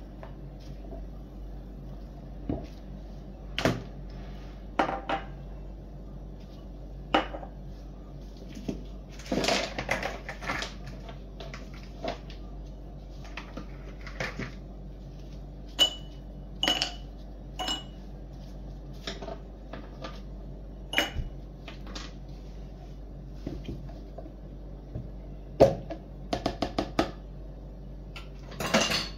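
Glassware knocking and clinking on a stone countertop as tall drinking glasses are set down and ice cubes are dropped into them. The sound comes as scattered sharp knocks, some ringing briefly, with a quick run of clinks near the end.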